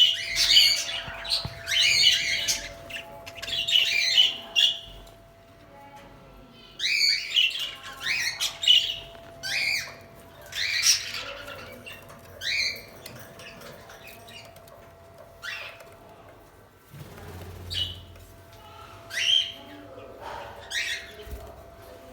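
Budgerigars chirping and squawking in short, sharp, irregular calls, several birds calling over one another.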